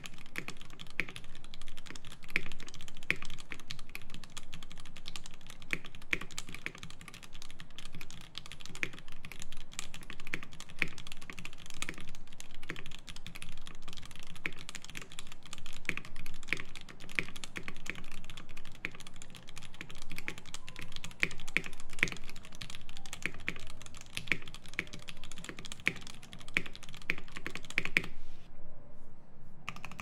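Fast continuous typing on a Klippe T R4 mechanical keyboard with stock Mauve switches on an aluminium plate, damped by case foam, with GMK Botanical keycaps: a dense, steady stream of keystroke clacks.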